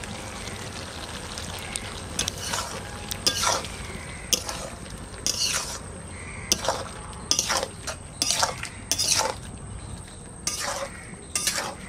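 A metal spatula stirs and scrapes around a karahi of simmering snake gourd and potato curry with scrambled egg. The spatula makes many irregular scraping strokes over a steady low sizzle.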